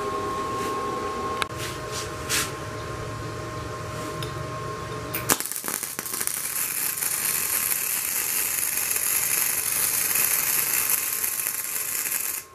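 A steady whine and hum with a few short clicks, then, from about five seconds in, a MIG welding arc from a Daiden MIGI130 welder crackling and sizzling steadily as the torch runs a bead on steel bars. The crackle cuts off suddenly near the end.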